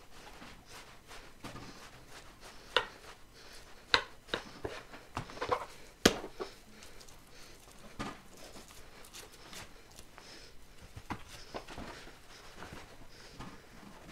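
Large knife trimming the fat cap off beef top sirloin on a plastic cutting board: soft slicing and handling of the meat, broken by scattered sharp taps of the blade on the board, the loudest about six seconds in.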